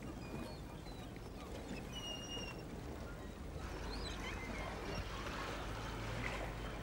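Outdoor ambience: scattered short high bird chirps over a low steady rumble, the chirping getting busier about halfway through.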